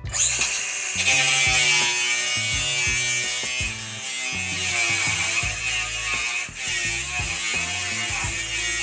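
A power grinder running steadily on metal, with one brief dip about six and a half seconds in, taking off metal for clearance and leaving bare areas. Background music plays underneath.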